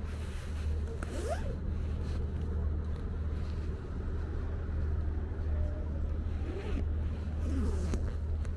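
Road traffic: a steady low rumble, with vehicles passing about a second in and again near the end.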